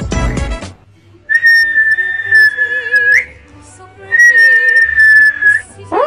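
A person whistling two long, steady high notes of about two seconds each, the first ending with a short upward flick, then a quick rising whistle near the end. Music cuts off just before the first note.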